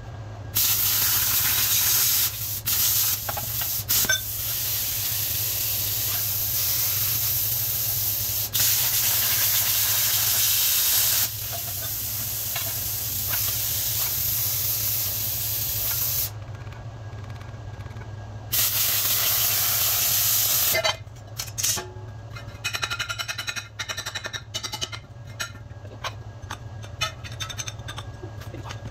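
Plasma cutter cutting steel: a loud steady hiss that starts and stops abruptly in long cuts, one running most of the first sixteen seconds and a shorter one a few seconds later, followed by irregular crackling and ticks.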